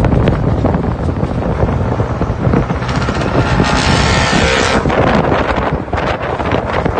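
Exhaust of an Isuzu C240 four-cylinder diesel engine running through a Lamigo muffler with four dividers, a steady rough pulsing note, with a louder, hissier rush of exhaust from about three to five seconds in.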